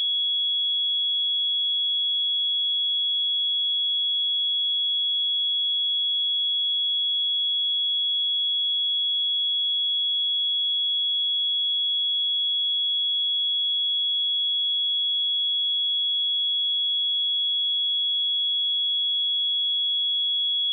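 Pure 3352 Hz sine-wave test tone, one steady high-pitched tone held unchanged throughout.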